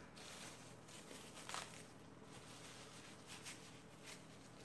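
Near silence: faint room tone with a few soft ticks of handling noise.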